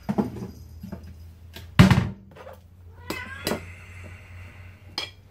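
A few knocks and clinks of kitchenware, the loudest about two seconds in, and a cat meowing once about three seconds in.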